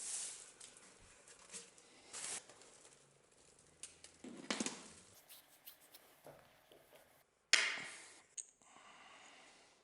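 Hand work on a knife at a workbench: scattered short scrapes, rustles and light clicks, with one sudden louder scrape about three-quarters of the way through that fades over a second.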